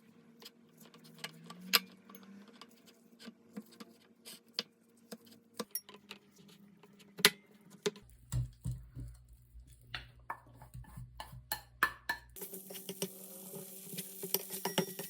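Kitchen clatter: a run of sharp clicks, taps and clinks of dishes and utensils being handled. A low hum runs underneath for a few seconds in the middle.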